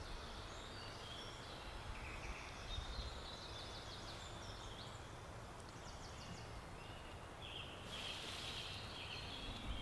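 Woodland birdsong: several small birds calling and singing short whistled phrases, with a couple of rapid trills, over a faint steady low outdoor rumble.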